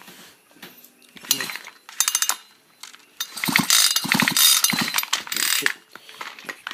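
Husqvarna chainsaw's recoil starter being pulled, the engine cranking over with a ratcheting clatter but not running, during a spark check with the plug grounded. There are two short pulls, then a longer run of cranking in the second half.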